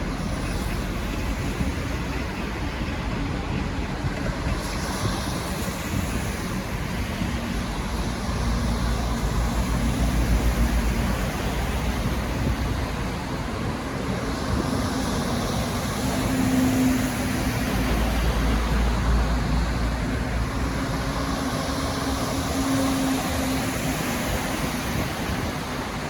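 V/Line N class diesel locomotive rumbling as it pulls away: a steady low engine drone with a faint wavering hum that swells twice. No horn sounds.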